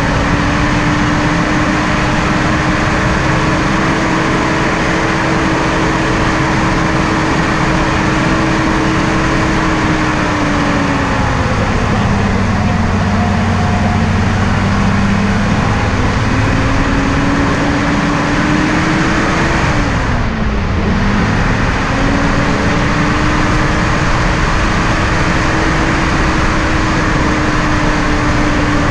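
Off-road vehicle engine running steadily while driving over rough desert ground, with a heavy rushing noise over it. The engine note sags for a few seconds partway through, then dips sharply and climbs back about twenty seconds in as the throttle is let off and reapplied.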